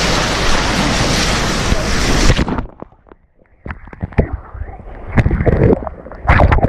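Wind blasting the microphone over rushing sea water beside a moving boat, cutting off abruptly about two and a half seconds in. After that, duller splashing with irregular knocks of wind on the microphone and faint voices near the end.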